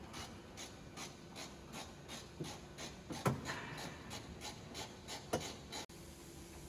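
Even, regular ticking, about two or three ticks a second, with two louder knocks, one around the middle and another about two seconds later.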